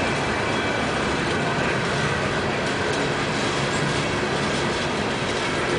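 Coal cars of a CSX freight train rolling past: a loud, steady rumble of steel wheels on the rails.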